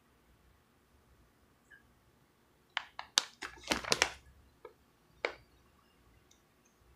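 Handling noise: a quick run of sharp crinkles and clicks about three seconds in, then a couple of single clicks a second or so later, against quiet room tone.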